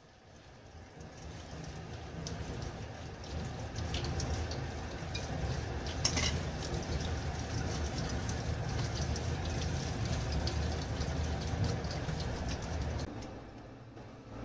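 Tap water running onto spinach leaves in a perforated stainless steel colander over a steel sink, as the leaves are rinsed by hand. The flow builds over the first couple of seconds, holds steady with a few light clicks, and eases off near the end.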